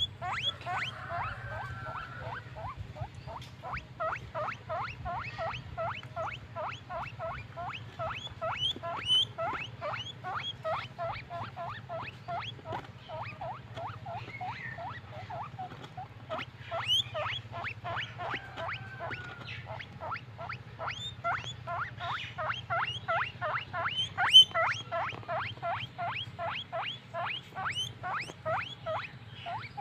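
Guinea pig wheeking: short rising squeaks repeated steadily, about two to three a second.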